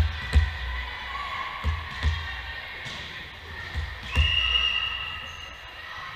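A volleyball bounced a few times on a hardwood gym floor by the server before the serve, then a referee's whistle blown for about a second a little past the middle, signalling the serve.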